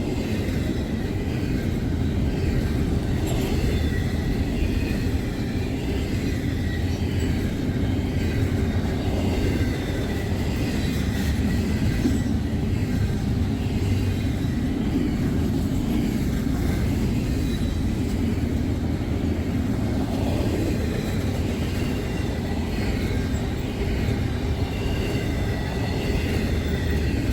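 Cars of a long freight train rolling past: a steady rumble of wheels on rail, with thin high squeals that come and go.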